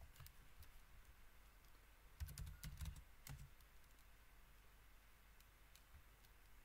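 Faint computer keyboard keystrokes as a terminal command is typed and entered, a short run of clicks about two to three and a half seconds in and a few scattered ones otherwise.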